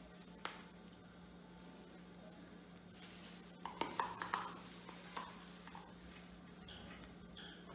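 Metal spoon scraping and clinking against a plastic food container as stroganoff is scooped out, with a cluster of small clicks about four seconds in and a few more later, over a faint steady hum.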